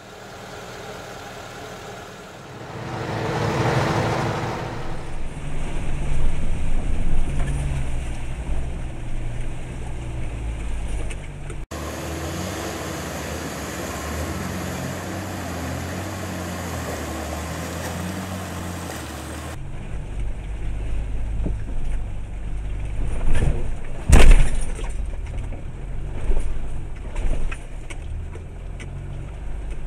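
Off-road 4x4 engines labouring through deep mud and water, in several clips cut together. A swell of rushing noise comes about four seconds in, and sharp knocks come about two thirds through, the loudest a single heavy thump.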